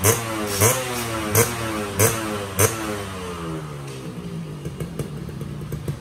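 Suzuki Xipo two-stroke engine, fitted with a Singer cylinder, blipped five times in quick succession about every half second. From about three seconds in it settles to a lower idle with an irregular crackle from the exhaust.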